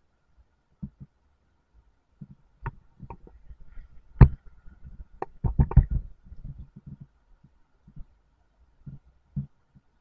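Irregular low thumps and knocks from the camera and its mount being jostled on a slowly rolling bicycle, with a louder cluster from about four to six seconds in; no engine is running.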